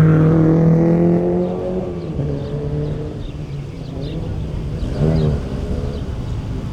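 Historic rally car's engine running hard at high revs, loud at first and then fading as the car pulls away. A short rev rise and fall comes about five seconds in.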